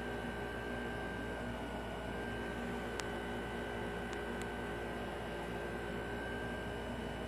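Window-type air conditioner running: a steady fan noise with a hum and a faint high whine. One sharp click comes about three seconds in.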